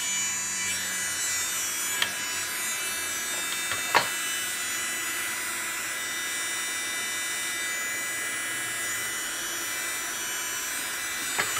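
Delanie electric nail drill (e-file) handpiece running steadily at 35,000 RPM with a bit fitted: a loud, steady, high whine. Two short clicks sound about two and four seconds in.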